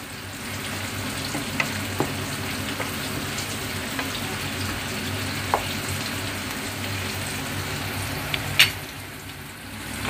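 Pork spareribs sizzling in a thick dark sauce in a nonstick frying pan while being stirred with a wooden spatula. A few sharp clicks stand out, the loudest near the end.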